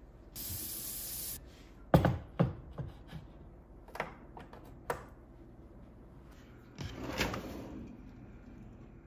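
Kitchen handling sounds: a brief hiss, then a few sharp clanks as a cast-iron teapot is set down on a glass-top electric stove, two clicks of the stove knob being turned, and a wooden drawer sliding open near the end.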